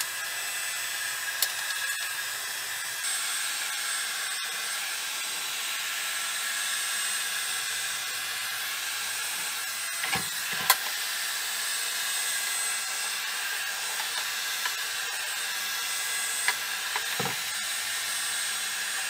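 Heat gun blowing: a steady hiss of hot air with a faint high whine from its fan. It is heating a sheet of plastic bottle stretched over chipboard to shrink it tight. A couple of light knocks come about ten seconds in and another near the end.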